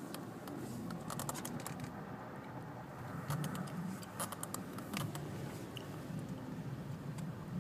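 The 2007 Volkswagen Jetta 2.5's five-cylinder engine runs at low revs, heard from inside the cabin, with a steady low hum. Irregular sharp clicks and crackles come over it in small clusters.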